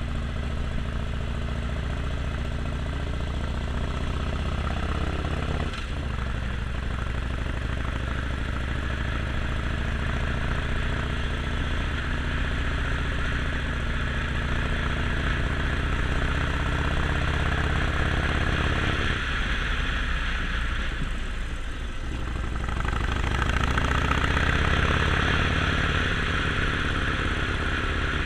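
Harley-Davidson Sportster Forty-Eight's 1200 cc air-cooled V-twin running on the move, its note rising and falling with the throttle under a steady rushing noise. There is a short break in the note about six seconds in, and the engine eases off about two-thirds of the way through before pulling up again.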